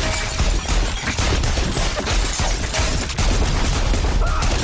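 Guns firing in a long, rapid, continuous volley, shot after shot with no break.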